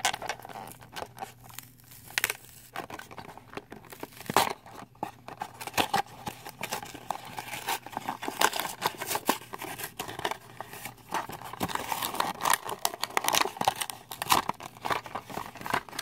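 Blister-card packaging of a die-cast toy car being torn and crinkled open by hand: a dense, irregular run of crackles, snaps and tearing.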